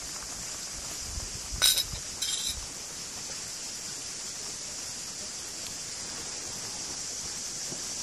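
A metal spoon and small dishes clinking: two short bright ringing clinks, about a second and a half and two seconds in, the first the louder. A steady high hiss runs underneath.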